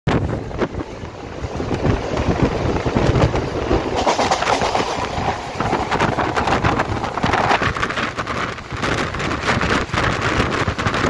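Mumbai local electric suburban train running at speed, heard from inside the coach: a steady rumble and rush of wind with frequent rattles and clatter.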